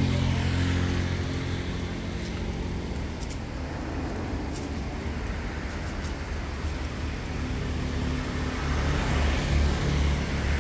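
Low steady hum of a motor vehicle engine running, a little louder near the end.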